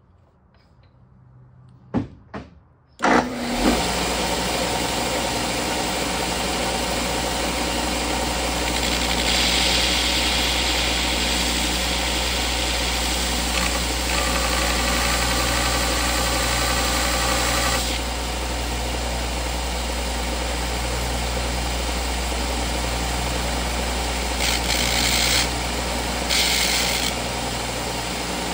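Electric grinder switching on about three seconds in and running steadily. The sound turns harsher while the kit's steel shaft is pressed against the wheel, for several seconds in the middle and twice briefly near the end, grinding it down to sit flush with the transmission case.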